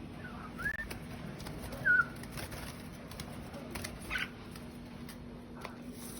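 Red-whiskered bulbul giving two short whistled call notes, the second the loudest, followed by a few faint taps over a low steady hum.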